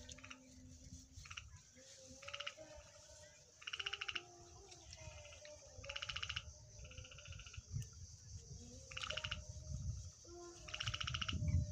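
Frogs calling in short, fast-pulsed trills, about one a second, each under a second long, over a steady high insect hum and a low rumble.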